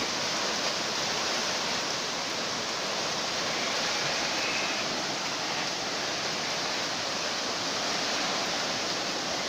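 Steady, even rushing of water, the sound of heavy rain and flash-flood water.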